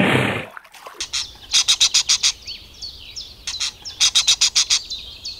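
A hippopotamus blows out at the water's surface for about half a second. From about a second in, rainbow lorikeets chirp in quick runs of short, high-pitched calls.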